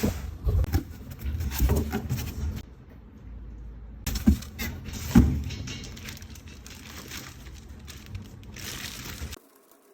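Handling noise from unboxing a pair of boxing gloves: packaging rustling, with scattered knocks and clicks as the box and gloves are handled, two sharper knocks around the middle.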